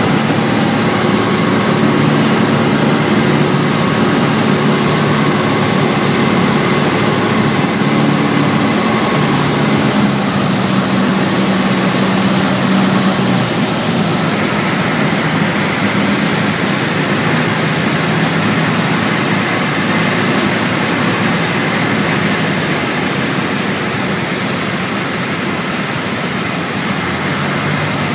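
Piper Tomahawk's Lycoming O-235 four-cylinder engine and propeller heard from inside the cockpit: a steady drone with heavy air noise. About halfway through, the engine note changes and settles slightly quieter as power comes back on the landing approach.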